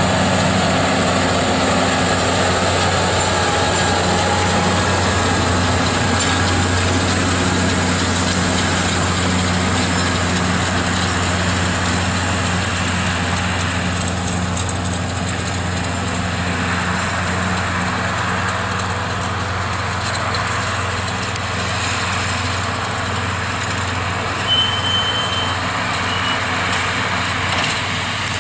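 JCB Fastrac 3200 tractor's diesel engine running steadily under load as it pulls a round baler through oat straw, growing slowly quieter as it moves away. A brief high tone sounds about three-quarters of the way through.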